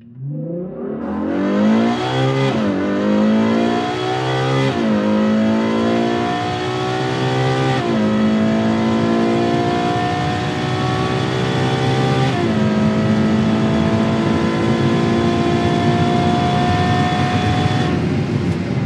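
Ferrari FF's 6.2-litre V12 accelerating hard through the gears. The pitch climbs in each gear and drops at four quick upshifts of the dual-clutch gearbox, then climbs more slowly in the top gear before fading near the end.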